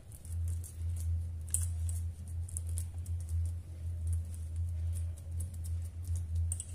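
Soft patting and squishing of a wet besan-and-peanut kabab mixture being pressed into a patty between flour-dusted hands, heard as faint scattered ticks over a steady low hum.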